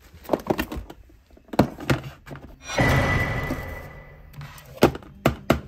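Clear plastic storage boxes being handled: scattered knocks and clicks of hard plastic, a longer scraping rustle a few seconds in, then several quick plastic clicks near the end as the lid and latch are worked.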